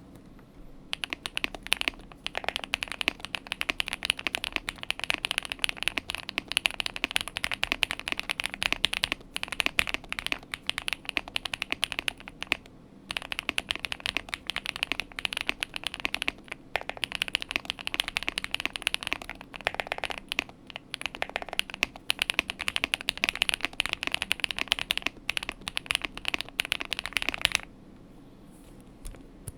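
Fast, continuous typing on a tape-modded Epomaker P87 mechanical keyboard with stock Zebra linear switches and double-shot PBT keycaps. It starts about a second in, pauses briefly near the middle and stops shortly before the end.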